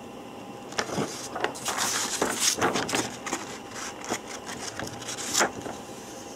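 Sheets of printer paper rustling and crinkling as they are handled and shifted, in a run of irregular rustles with a louder crackle near the end.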